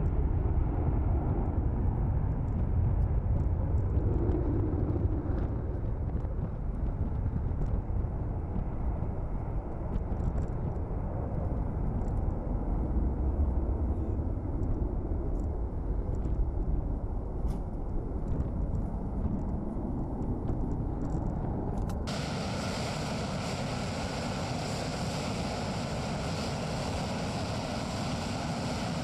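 Jet aircraft taking off: a deep rumble of jet engines that slowly fades as the aircraft climbs away. About three-quarters of the way through, the sound changes abruptly to a steady, higher rushing jet noise from an aircraft on the runway.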